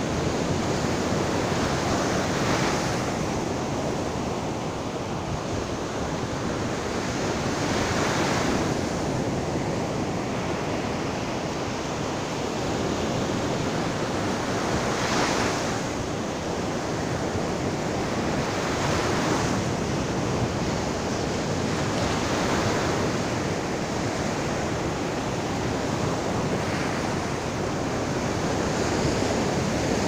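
Ocean surf breaking and washing up a sandy beach: a steady rush of water that swells every few seconds as each breaker comes in.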